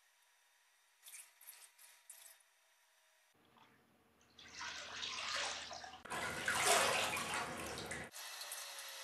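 Water splashing in a wash basin as hands scoop and wash in it. The splashing starts about four seconds in, grows louder, and stops suddenly about eight seconds in. A few faint light clicks come before it.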